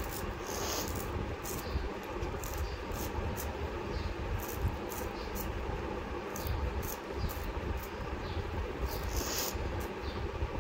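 Scissors snipping coriander stems, short crisp snips at an uneven pace of about two a second, over a steady low background rumble.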